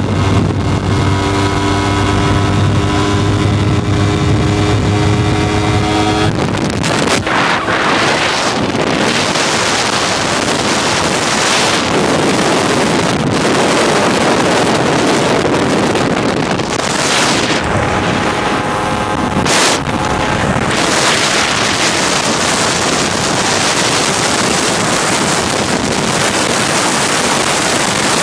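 Motorcycle engine running at a steady pitch while riding. About six seconds in, loud wind rushing over the microphone takes over and mostly covers the engine for the rest of the ride.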